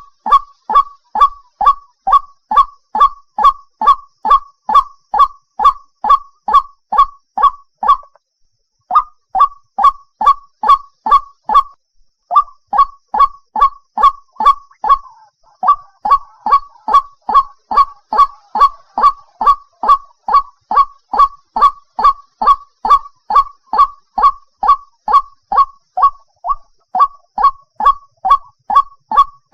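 White-breasted waterhen (ruak-ruak) calling: a loud, fast series of short, harsh croaking notes, about two or three a second, pausing briefly twice before starting up again.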